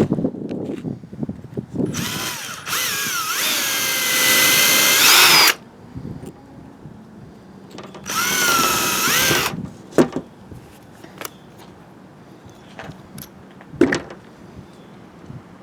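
Electric drill running in two bursts: a longer one of about three and a half seconds whose pitch wavers and rises near its end, then a shorter one of about a second and a half. It is drilling the broken graphite shaft stub out of a golf driver's adapter. A few short knocks follow.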